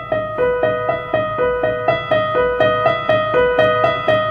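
Electronic keyboard in a piano voice playing the notes of a B major chord one at a time in an even rhythm, about four notes a second, rocking back and forth between B and D sharp.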